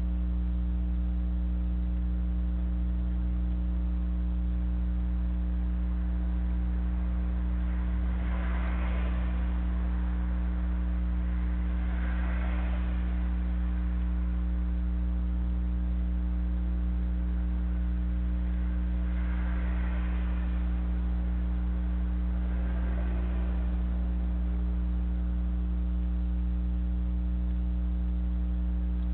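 Steady electrical mains hum with a stack of overtones, picked up by a security camera's microphone. Four faint swells of hiss-like noise, each a second or two long, rise and fall over it.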